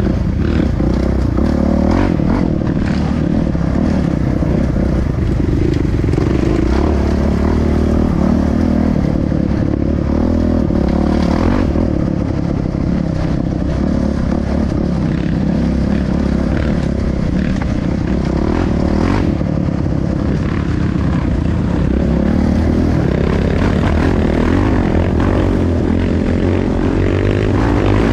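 Off-road trail motorcycle engine running steadily while riding, with a few brief knocks and scrapes along the way.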